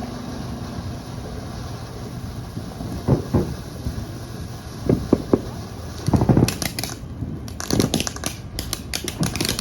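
Fireworks going off: scattered low booms from about three seconds in. About six seconds in comes a louder cluster, followed by dense crackling pops mixed with further booms.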